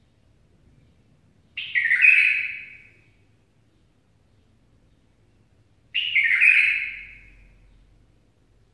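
A caged songbird sings two short warbled phrases about four seconds apart, each lasting about a second and a half.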